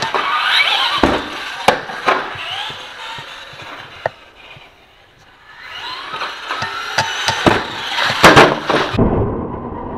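Traxxas Slash RC truck's 12-turn brushed electric motor, on a 2S LiPo, whining up and down in pitch as the truck accelerates and slows, with sharp knocks and clatters from the chassis and wheels hitting the ground. The motor is quiet for a moment in the middle, and near the end a steady low rushing noise takes over.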